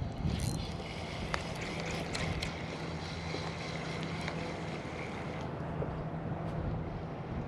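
Wind buffeting the microphone: a steady low rumble, with a few faint clicks in the first few seconds.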